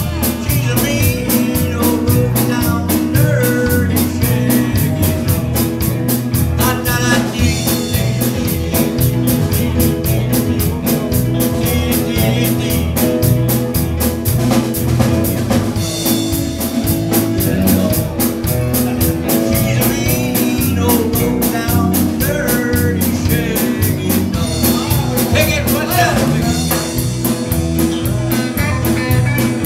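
Live rockabilly band playing a number, with a drum kit keeping a steady beat under electric guitar and keyboard.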